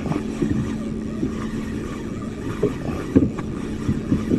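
Motorized outrigger banca's engine running with a steady low hum, with a few light knocks and clicks as a spinning reel is worked.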